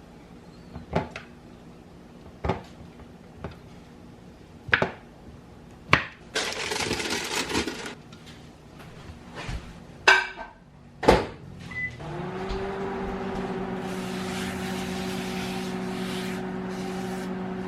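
Scattered clicks and knocks of household objects being handled, with a short rush of noise in between; about twelve seconds in, an electric appliance starts and hums steadily.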